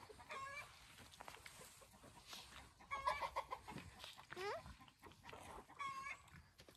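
Chickens clucking: about four short calls spread through, one sliding upward in pitch about halfway through.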